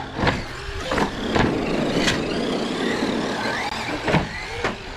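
Traxxas Rustler 4x4 electric RC trucks racing over pavement: motors whining up and down in pitch over a rumble of tyres, with several sharp knocks.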